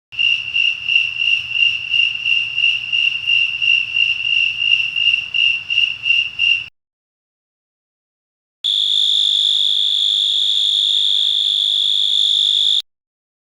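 Two recorded insect calls. First, a high chirping pulsed about three times a second for some six seconds. Then, after a short silence, a different insect gives a steady, unbroken high trill for about four seconds.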